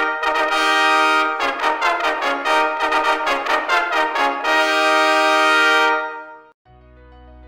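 Brass fanfare: a held chord, then a run of quick repeated notes, then a closing held chord that fades out. Soft background music begins near the end.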